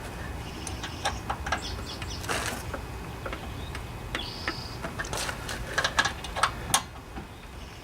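Light scattered metal clicks and taps of the carburetor float bowl and its bolt being fitted and tightened by hand, with a short high chirp about four seconds in.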